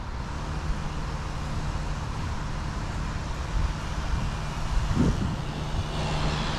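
Steady low mechanical hum over a rumble, with a brief faint knock about five seconds in.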